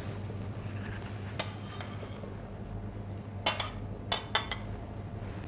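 Short clinks and taps of a utensil against a serving dish and plate as diced cucumber is tipped onto a salad: a single tap about a second and a half in, then a quick cluster of clicks a little after three seconds in. A low steady hum sits underneath.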